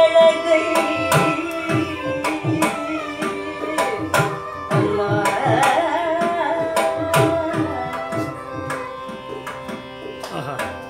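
Carnatic vocal music: a woman singing a wavering melodic line, accompanied by mridangam strokes and violin over a steady drone. The dense drumming is the loudest part. The music grows quieter over the last few seconds.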